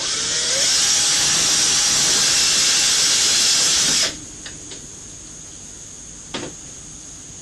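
A power tool runs with a steady hiss for about four seconds, with a brief rising tone as it starts, then cuts off suddenly. A single short knock follows a couple of seconds later.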